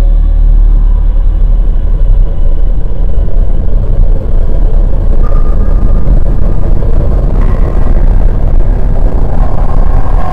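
Steady ride noise from inside a moving jeepney: engine rumble with road and wind noise, heavy in the low end.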